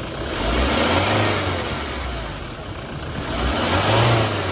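2007 Kia Sorento 2.5 L turbodiesel revved twice. Each rev brings a hiss of boost air leaking from a split rubber intercooler outlet hose.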